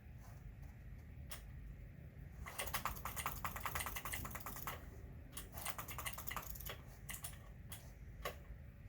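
Typing on a computer keyboard: a few scattered key clicks, then a fast run of keystrokes starting about two and a half seconds in and lasting about two seconds, followed by shorter bursts and single clicks.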